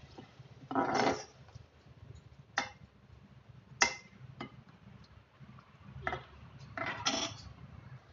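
Metal spoon stirring gravy in an aluminium saucepan, scraping and clinking against the pan's side and bottom every second or so, with two longer scrapes about a second in and near the end.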